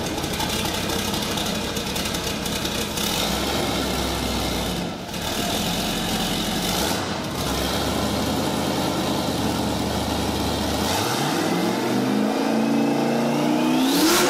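Turbocharged Datsun 280Z engine idling loudly. About eleven seconds in it is revved, its pitch climbing steeply to a peak near the end and then dropping back.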